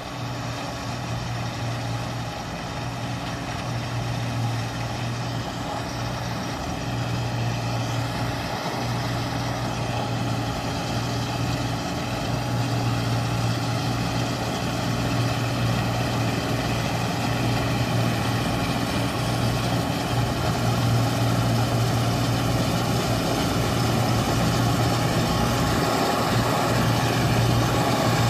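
Arbos 125 combine harvester with its Perkins six-cylinder diesel running steadily under load while cutting and threshing wheat, growing gradually louder as the machine draws near.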